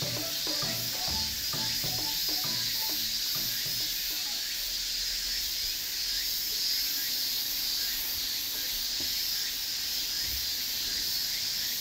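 A steady, high-pitched chorus of summer insects buzzing. Background music with plucked notes plays over the first few seconds, then fades out.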